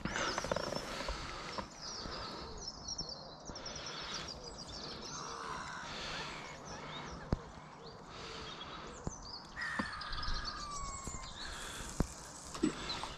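Crows cawing, with smaller birds chirping and a few sharp clicks in the second half.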